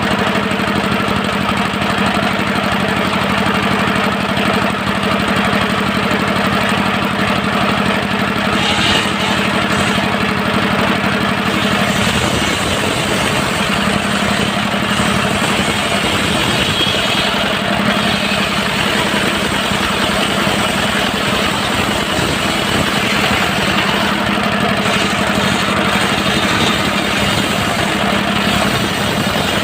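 Diesel engine of a mobile circular-saw sawmill running steadily and loudly. About twelve seconds in its steady hum gives way to a rougher sound.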